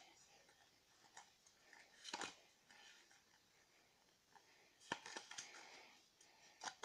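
Mostly near silence, with a few faint rustles and clicks of Pokémon trading cards being handled in the hand: about two seconds in, around five seconds in, and just before the end.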